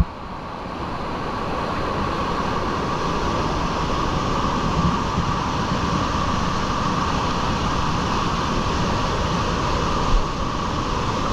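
Water of a small waterfall pouring over boulders into a pool, heard close up as a steady loud rush. It grows a little louder in the first couple of seconds, and there is a brief knock about ten seconds in.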